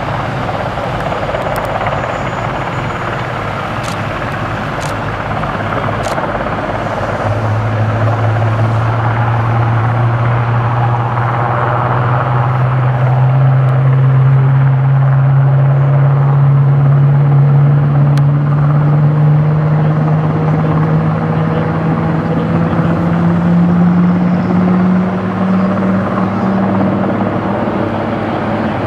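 Military transport helicopter hovering and air-taxiing low over the airfield, its rotor and turbine sound growing louder. From about seven seconds in, a strong low drone slowly rises in pitch.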